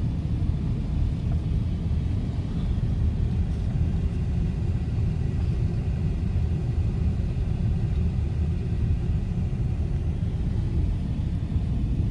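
Steady low rumble of a Chevrolet Tahoe, heard from inside the vehicle as it runs in a parking lot.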